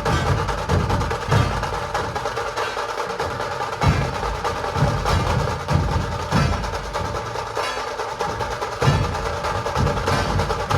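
Dhol Tasha ensemble playing: big barrel dhols beat a steady rhythm of deep strokes while tasha snare-drums rattle fast and continuously over them.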